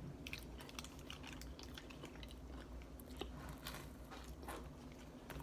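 Faint chewing of a French fry dipped in sauce: soft, irregular small crunchy clicks.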